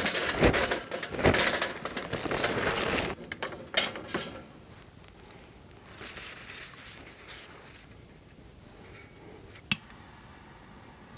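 Charcoal briquettes poured into a metal chimney starter: a dense clattering rush for about three seconds, then a few lighter knocks and rustles and one sharp click near the end.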